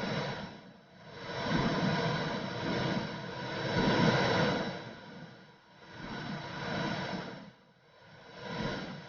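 Womb sound for soothing a baby: a whooshing noise that swells and fades in slow waves every few seconds.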